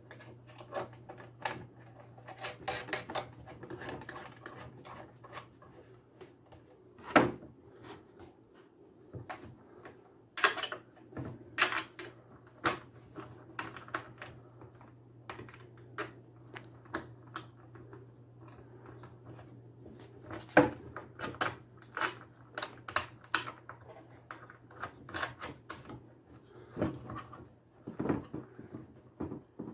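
Irregular clicks and knocks of a metal mounting bracket and its hardware being handled and fitted to the side of a CB radio, over a steady low hum.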